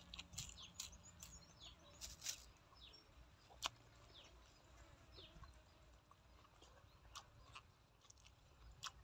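Faint chewing and lip-smacking from a person eating pork intestine and fresh greens by hand: a few short, sharp wet clicks over otherwise near silence.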